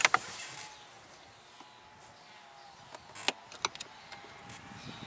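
A few sharp plastic clicks and taps from work on a car's A-pillar trim and grab handle: one click at the start, then three in quick succession about three and a half seconds in, as the screw caps and handle are worked loose, over a faint steady hum.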